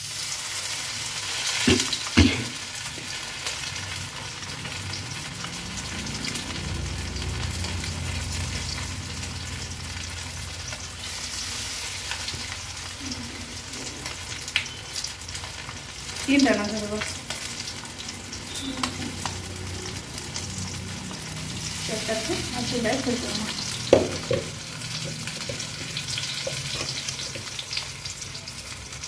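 Masala-marinated small whole fish frying in hot oil in a kadai, a steady sizzle as more pieces are laid into the oil. A few short knocks stand out, about two seconds in, near the middle and near the end.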